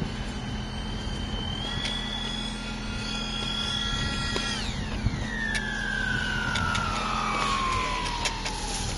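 The four electric ducted fans of a radio-controlled VC-10 model jet whine at a steady high pitch, several close tones together. About halfway through, the whine drops sharply in pitch and then keeps sinking slowly as the model flies past low.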